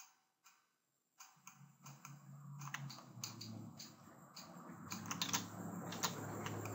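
Computer mouse clicks and keyboard key presses, scattered and sharp, thickest near the end, over a low steady hum that comes in about a second in.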